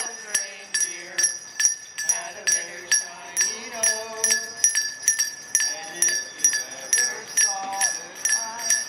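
A handbell rung steadily for charity bell ringing, about three strikes a second, each strike ringing on, with people's voices in the background.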